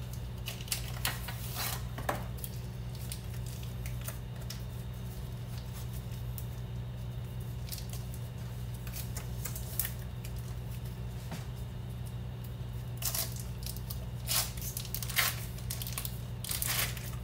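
Foil-paper wrapper of a block of cream cheese being peeled off, crinkling and tearing in short bursts in the first couple of seconds and again near the end. A steady low hum runs underneath.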